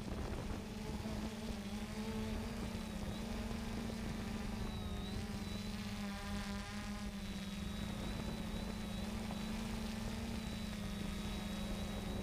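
3DR Solo quadcopter's motors and propellers buzzing steadily, heard from its camera on board, with the higher tones wavering in pitch around the middle as the motor speeds shift.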